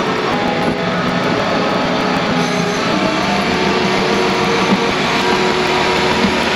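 Flatbed tow truck's hydraulic winch and engine running steadily, a mechanical drone with a steady whine over it, as a kei van is pulled up the tilted bed.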